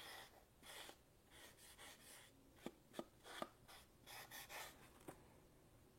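Melamine sponge scrubbing a plastic model-kit runner: a series of faint, short rubbing strokes, with a few sharp plastic clicks in the middle, sanding the glossy plastic down to a matte finish.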